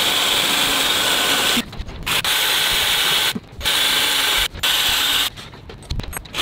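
Cordless drill running with a twist bit, drilling a hole down through a sailboat's gelcoated fibreglass deck. It runs in four stretches, stopping briefly between them, then goes quieter near the end.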